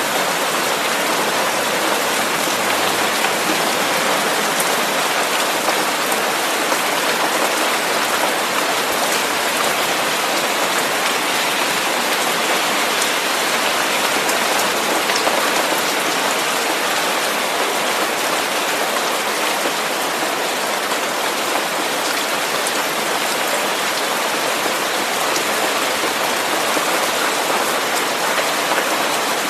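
Steady rain falling on a surface: a dense, even hiss with fine droplet ticks through it, unchanging in level.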